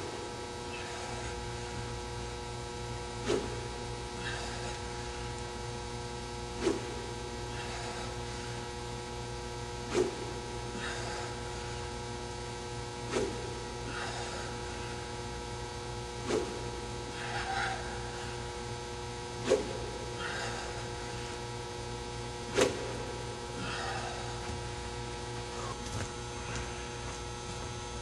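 Golf club striking the turf hitting mat in repeated full swings: about nine sharp strikes, one every three seconds or so, each followed about a second later by a fainter swish. A steady electrical hum sits underneath.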